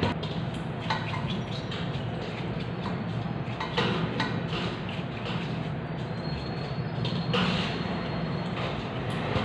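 Light clicks and taps of small metal carburetor parts and tools being handled, over a steady low rumble of background noise.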